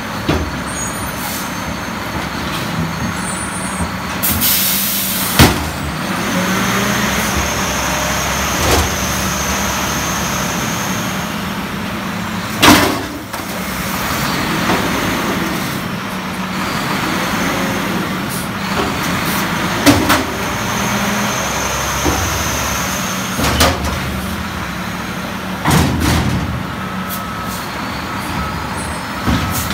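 Mack front-loader garbage truck emptying a dumpster: the diesel engine runs under load to drive the hydraulic arms lifting the steel container over the cab and lowering it again. A burst of air hiss comes about four seconds in, and the container bangs loudly several times as it is shaken out and set down.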